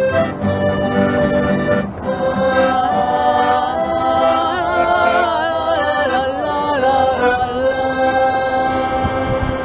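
Female voices singing a French folk song together over a diatonic button accordion, with plucked string accompaniment. The voices come in about two seconds in and hold a long note near the end.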